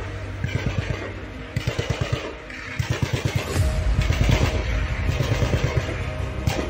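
Automatic gunfire in bursts: rapid low thuds, about eight a second, in runs with short breaks, over a steady low rumble.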